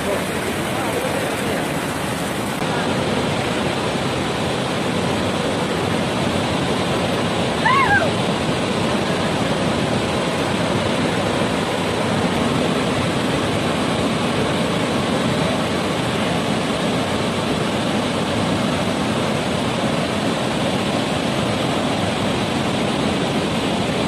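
Unchalli Falls in full monsoon flow: a loud, steady rush of falling water. A brief high call rises over it about eight seconds in.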